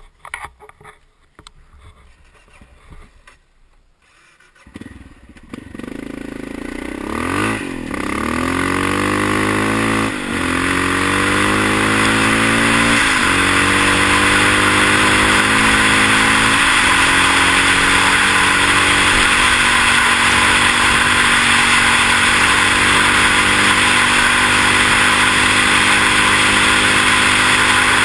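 Honda XR650 dual-sport motorcycle's single-cylinder four-stroke engine pulling away and accelerating up through the gears. Its pitch climbs and drops back at each of about four shifts, then holds steady at cruising speed. Heavy wind rushes over the microphone, and there are a few knocks in the quiet first seconds.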